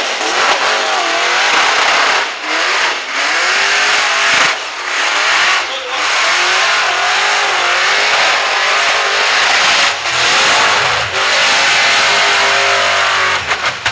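A supercharged LS V8 in a Holden VX Commodore revving hard during a burnout, with tyres screeching. The engine note wavers and drops out briefly several times instead of holding steady. This is a sign the engine is not running right, which the commentators put down to the tune not being right.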